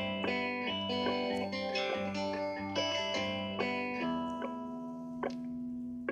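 Instrumental music: a run of plucked guitar notes with effects, settling about four seconds in on a held chord that rings on.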